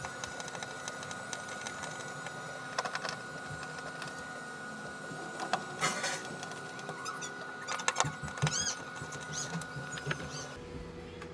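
Reassembly work on a TV: a few sharp clicks and knocks of parts and screws being handled, over a steady faint high whine.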